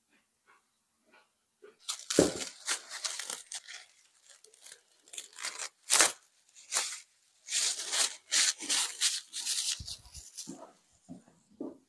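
Plastic cling film crinkling as it is pulled off a glass bowl, mixed with a nitrile-gloved hand squelching and tearing through sticky, risen babà yeast dough, in a run of short rustles and rips that starts about two seconds in.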